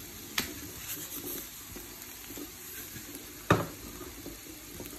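Diced sausage, green pepper and onion sizzling in a frying pan, with a couple of sharp knocks, the loudest about three and a half seconds in.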